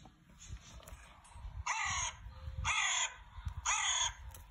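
A crow cawing: three caws about a second apart, starting a little under two seconds in, with a fourth beginning right at the end.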